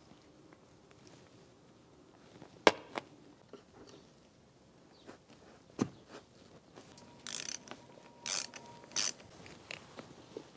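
A few sharp clicks, then three short scraping rustles, as a car seat headrest's metal posts are worked into the guides of a leather-covered seat back. The loudest click comes a few seconds in.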